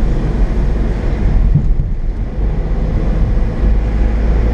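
Steady low rumble and road noise of a car driving, heard from inside the cabin.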